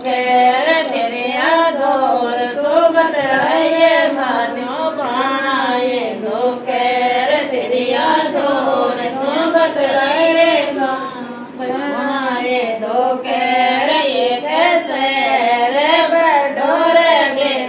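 Women singing a Rajasthani Marwari folk song to Bheru ji, a chant-like melody with no instruments heard. The line breaks off briefly about two-thirds of the way through, then resumes.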